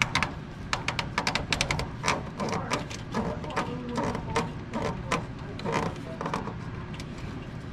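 Ratchet clicking in short, irregular runs of sharp clicks as it loosens the clamp that holds the bypass valve in place.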